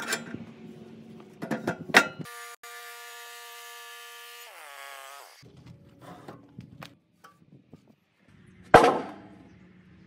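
Freshly sawn boards being handled: scattered wooden knocks and clatter, then one loud, heavy wooden thunk near the end. In the middle, a steady sound of several tones holds for about three seconds, then slides down in pitch and cuts off.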